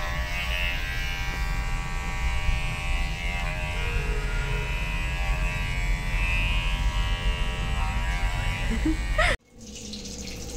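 Cordless electric pet hair clippers buzzing steadily as they shave a small dog's belly fur. The buzz cuts off suddenly near the end.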